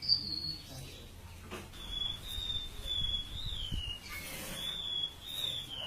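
Siur-siur laut songbird singing thin, high whistled phrases: a short note at the start, then two long wavering phrases that each slide down in pitch at the end.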